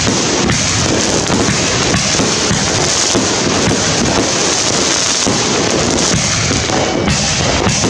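A 66-shot, 2-inch consumer firework cake firing: a dense, unbroken barrage of shots and bursting aerial shells, loud throughout.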